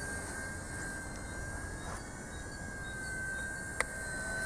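Small RC helicopter flying overhead: a steady high whine from its electric motors and rotors, wavering slightly in pitch. A single sharp click comes near the end.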